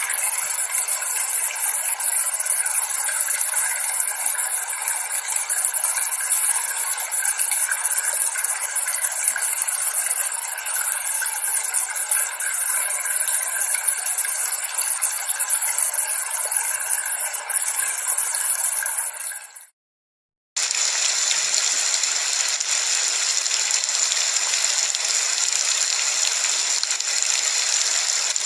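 Steady rain falling, a dense even hiss. About two-thirds of the way through it cuts off for a second, then comes back with a brighter, hissier sound, as from a different recording of rain.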